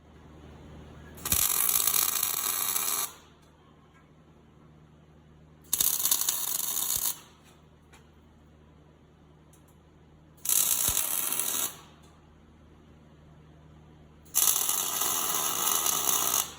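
Electric welding arc crackling in four bursts of one to two seconds each, starting and stopping sharply: tack welds fixing a steel skid steer plate to a snowplow frame. A steady low hum runs underneath.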